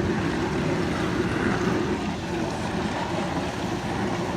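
Whirlpool dishwasher running as it fills: a steady rush of water with a low hum under it.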